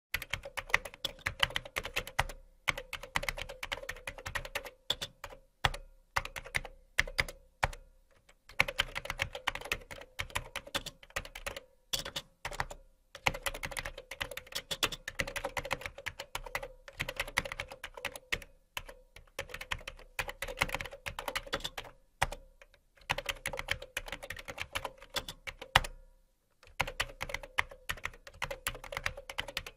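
Typing on a computer keyboard: rapid runs of key clicks in bursts of a few seconds, broken by short pauses, with the odd louder keystroke.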